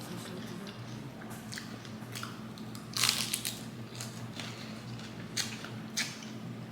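A person chewing crunchy food close to the microphone: irregular crunches and crackles, the loudest about three seconds in.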